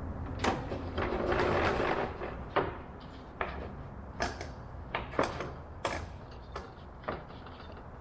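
A table saw crosscut sled and plywood being slid and positioned by hand: a short sliding scrape about a second in, then a run of sharp knocks and clicks as the wood and sled are bumped into place.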